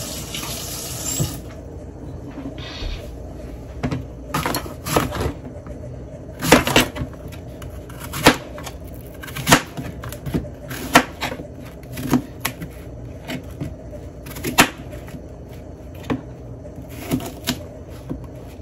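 A kitchen tap runs briefly and stops about a second in. Then a knife chops Granny Smith apples on a cutting board, in irregular sharp knocks about one a second.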